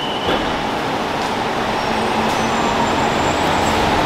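Steady rumble and hiss of a road vehicle in motion, with a high steady tone that stops just after the start.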